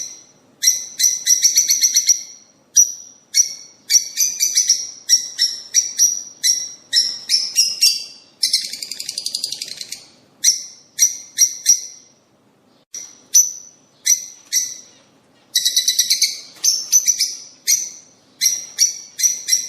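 A songbird singing in quick bursts of chirps and trills, with a longer buzzy trill about nine seconds in and a short pause near the middle. It is a recorded stimulation song of the kind played to cage birds to set them singing.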